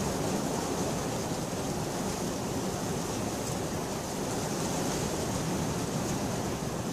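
Steady rain, an even hiss that holds level throughout, with no thunder.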